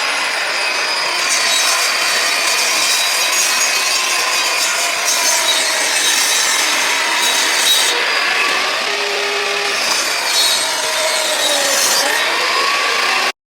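A saw cutting through wood, going on without a break, then cutting off suddenly near the end.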